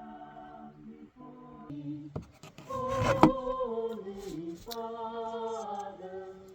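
Singing or humming of a slow melody in long held notes that step from pitch to pitch. A single sharp crack comes about three seconds in.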